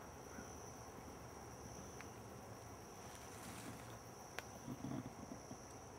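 Faint, steady high-pitched drone of insects in summer woodland, one even note held throughout. A couple of faint ticks and a soft low rustle come past the middle.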